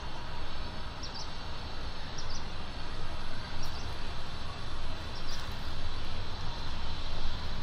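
Steady outdoor background noise dominated by a low rumble, with a small bird chirping four times, each a quick high double note.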